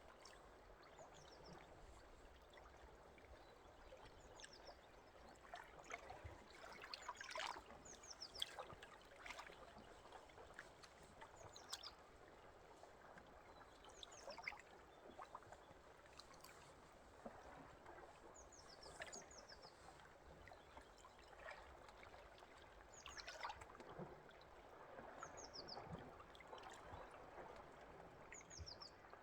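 Faint water trickling and splashing, as of a small stream, with short runs of high bird chirps every few seconds.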